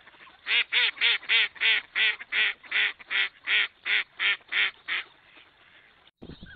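A duck quacking in a quick, even series: about a dozen loud quacks at roughly three a second, stopping about five seconds in.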